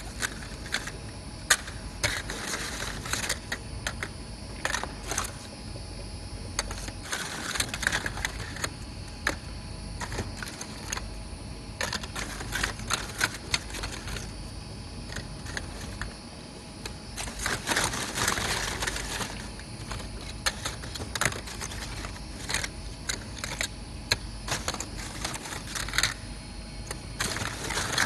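Irregular clicking and clattering of plastic screw-top lids knocking together as they are picked up and shuffled by hand in a cardboard box, over a steady low hum.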